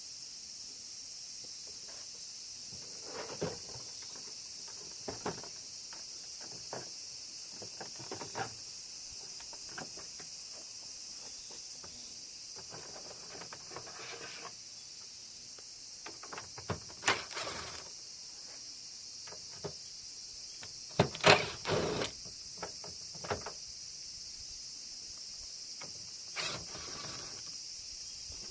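Scattered plastic clicks and knocks from an air-conditioner indoor unit's casing and panels being handled and unclipped during disassembly, loudest in a quick cluster about two thirds of the way through. A steady high hiss continues underneath.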